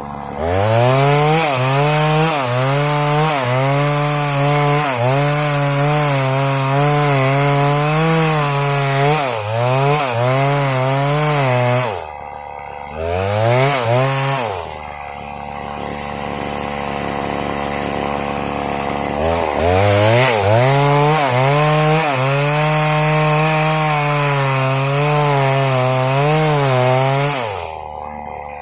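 Stihl MS 381 two-stroke chainsaw at full throttle ripping through waru wood, its pitch dipping slightly as the chain bites. It drops to idle about twelve seconds in, revs once briefly and idles again, then goes back to full throttle cutting before falling to idle near the end.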